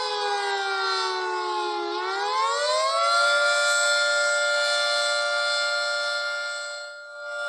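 A siren: its pitch falls slowly, sweeps up about two seconds in, then holds a steady tone, fading briefly near the end before coming back.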